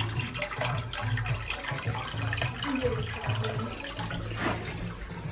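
Water splashing and bubbling in a turtle aquarium, from the filter's outflow pouring into the tank, over a low repeating pulse.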